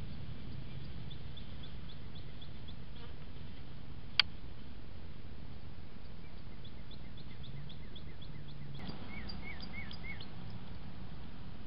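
Birds chirping outdoors in quick runs of short high notes over a steady background hiss, with a few short rising-and-falling calls near the end. A single sharp click sounds about four seconds in.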